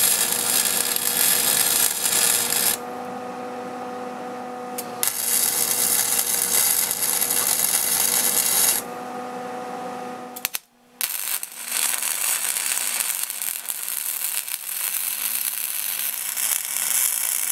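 Arc welding steel mower-deck mounts: the arc crackles and hisses in a weld of about three seconds, then, after a short pause, another of about four seconds. After a brief silence a longer weld follows, with a steady hum underneath throughout.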